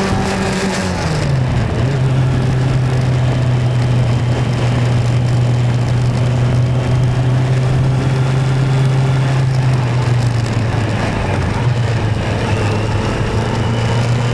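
Motorcycle engine running under way. Its pitch drops about a second in as the throttle eases or a gear changes, then holds steady, with a slight dip in revs near the end.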